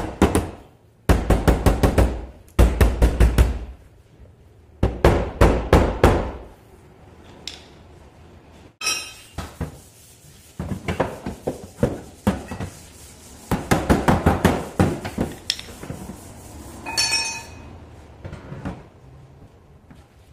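Hammer tapping out dents in a car's steel door panel: quick runs of sharp taps, several a second, in bursts of about a second, with pauses between. Twice a brief metallic ring.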